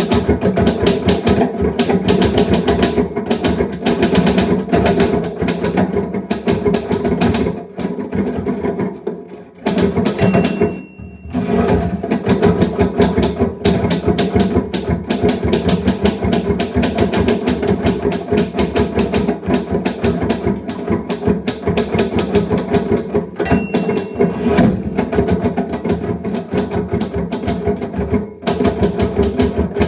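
Typewriter keys being struck in a rapid, continuous stream of clicks, with a few brief pauses. A short ringing ding sounds twice, about ten seconds in and again past twenty seconds.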